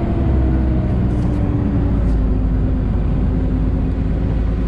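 A Sherp amphibious ATV's Kubota diesel engine running steadily under way, a deep drone heard from inside the cab. Its pitch eases slightly lower about a second and a half in.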